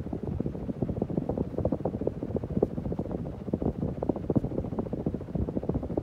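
Hunter Low Profile II ceiling fan running on high speed, its downdraft buffeting the microphone as uneven wind noise over the fan's running sound.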